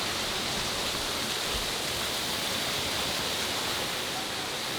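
Steady rush of falling water from a man-made waterfall close by.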